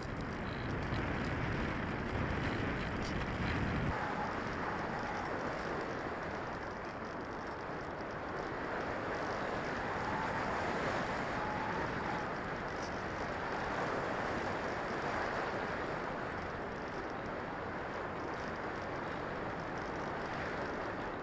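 Steady rush of wind noise on the microphone. A deep low rumble in it cuts away about four seconds in.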